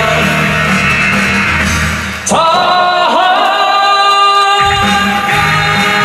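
Live band playing the closing bars of a Mandarin pop-rock song. About two seconds in, a sustained note bends up into pitch and holds while the bass and drums drop out for a couple of seconds, then the full band comes back in.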